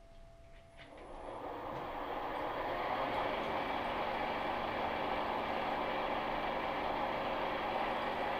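Vertical milling machine with a horizontal angle head starting up about a second in, its motor and drill then running steadily as the bit cuts into the forged end of a steel truck tie rod.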